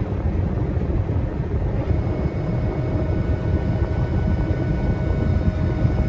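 Combine harvester running, heard from inside its cab as a steady low rumble. About two seconds in a steady whine joins it as the unloading auger runs, pouring barley into a trailer alongside.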